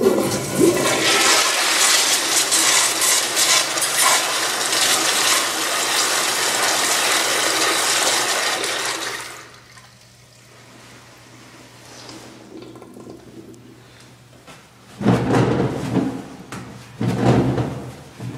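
Commercial flushometer toilet flushing: a loud rush of water for about nine seconds, then a quieter stretch as the flush finishes. Two loud bursts of sound come near the end.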